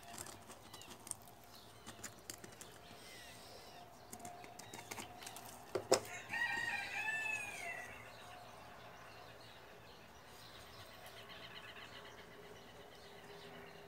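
Light rustles and small clicks of potting mix being tipped and handled, then a sharp knock about six seconds in. Right after it a rooster crows once, a call that rises and falls over about a second and a half.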